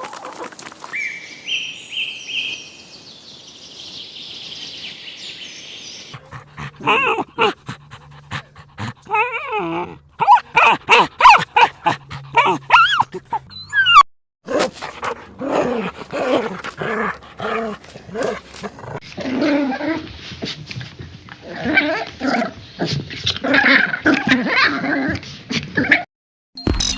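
Dogs calling in a rapid series of short barks and yelps, in several clips cut together.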